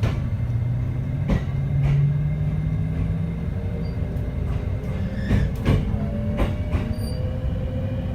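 E653 series 1100 electric train's Hitachi IGBT three-level VVVF inverter and traction motors humming, the tones rising in pitch as the train gathers speed. Wheels clack sharply over rail joints several times over a steady running rumble.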